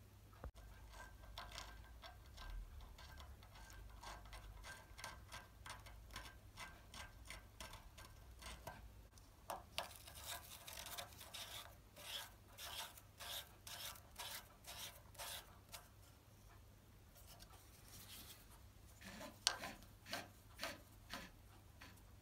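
Faint clicks and light metal scraping from a hex key working the grub screw in a timing pulley's hub on a stepper motor shaft: a long run of small ticks a few a second, then a few sharper clicks near the end.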